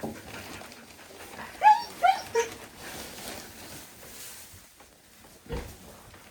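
Three short, high-pitched animal yelps in quick succession, each rising and then falling in pitch, about two seconds in.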